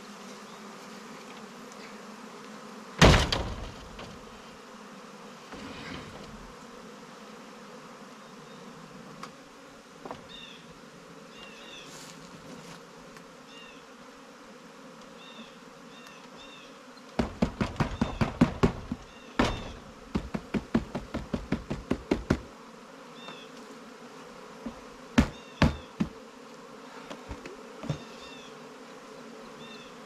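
Honeybee swarm buzzing steadily around a nuc box held up into the tree. A loud thump about three seconds in, then a run of quick knocks and rattles in the second half, with a few more knocks after. Faint short high chirps come through now and then.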